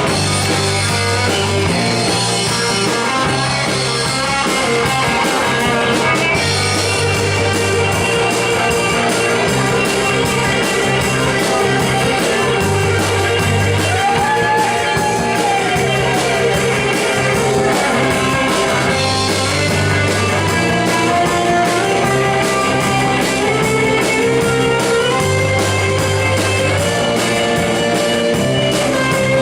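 Live rock band playing, electric guitars over bass and drums, with a low bass figure coming round about every six seconds.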